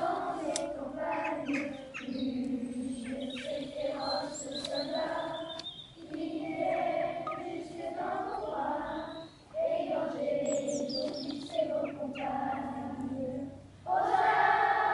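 A group of voices, many of them children, singing together in long held phrases with short breaks, like a choir. Birds chirp faintly in the background.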